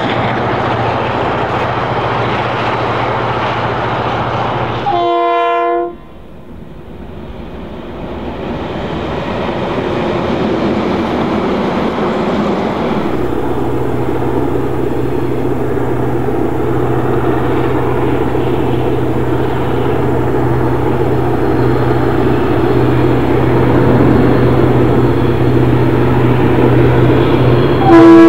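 Diesel locomotive DBR 1254 running with a steady low engine hum, sounding a short horn blast about five seconds in. The sound then drops off suddenly, builds back up gradually as the engine noise grows, and a second, louder horn blast comes at the very end.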